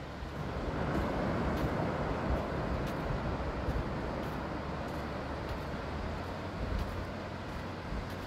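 Ocean surf breaking and washing up a beach: a steady rush that swells about a second in and slowly eases, with wind rumbling on the microphone underneath.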